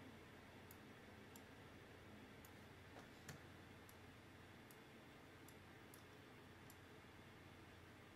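Near silence: quiet room tone with faint, sharp clicks every half second to second, one a little louder about three seconds in.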